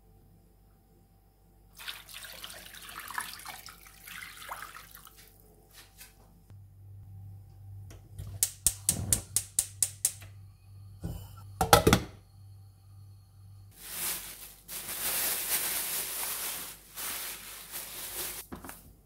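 Water pouring into a saucepan of raw chicken pieces. Then a gas stove's igniter clicks quickly about ten times over a low hum, followed by a knock. Near the end a plastic bag crinkles as a green papaya is pulled out of it.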